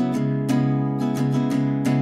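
Background music: acoustic guitar strumming over a steady low note.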